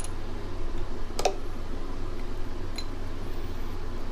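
A metal hand tool clinks once against the motorcycle's brake caliper fitting about a second in, with a short ring, and a fainter tick follows near three seconds. A steady low hum runs underneath.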